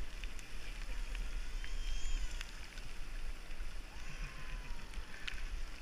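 Wind buffeting the microphone of a camera on a moving bicycle, a steady low rumble, with the hiss of tyres on rain-wet asphalt and a few faint clicks.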